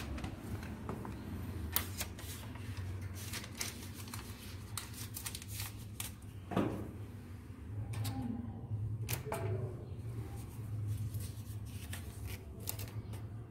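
A rat moving about inside a wire cage trap: irregular light clicks and rattles of the wire, over a low steady hum.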